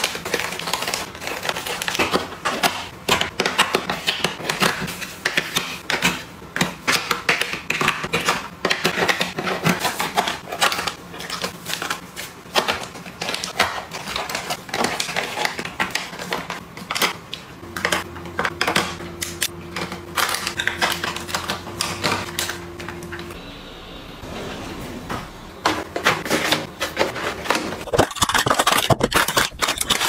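Plastic sachets and snack packets crinkling and tapping as they are placed by hand into plastic drawer organizer bins, with a quick, almost continuous run of crackles and light clicks.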